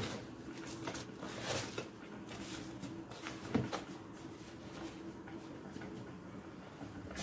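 Hands pressing and rubbing salt over a raw beef fillet in a plastic container: faint gritty rustles and scrapes, with a few brief soft crunches.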